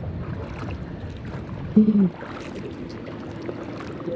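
Oars working an inflatable dinghy: a steady wash of water around the boat as it is rowed. About two seconds in there is one brief, loud pitched sound.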